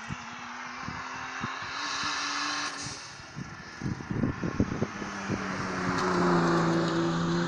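Hillclimb race car's engine approaching up the course, growing louder, and passing close by near the end with a strong steady engine note.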